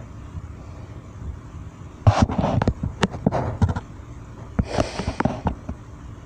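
Handling noise from work on a guitar body: a quick run of sharp clicks and knocks starting about two seconds in, a short scraping rustle about five seconds in, and a few more clicks, over a steady low hum.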